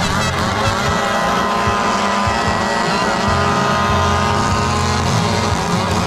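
Engines revving loudly, several at once, their pitch rising and falling without a break.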